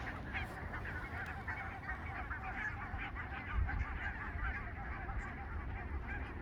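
Many birds calling at once: a dense, continuous chatter of short overlapping calls, like a flock.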